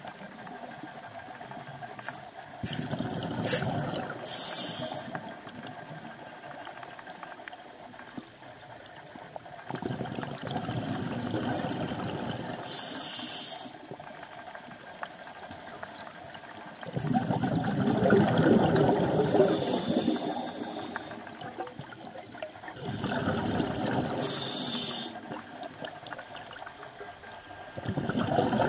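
A scuba diver breathing through a regulator underwater: a slow cycle of bubbling rumble and a short high regulator hiss, five breaths in all.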